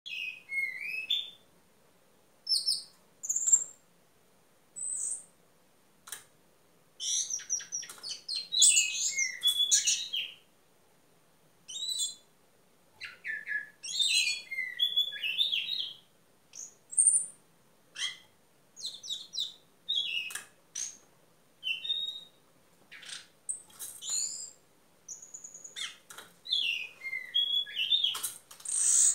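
Orange-banded thrush (anis cendana) singing in its cage: bursts of quick, varied, high whistled and twittering phrases with sweeping pitch, broken by short pauses, with a few sharp clicks in between.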